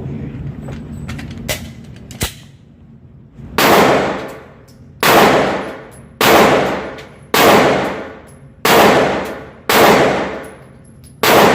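Handgun fired seven times at a steady pace, about one shot every second or so, each shot followed by a ringing echo tail. A couple of faint clicks come before the first shot.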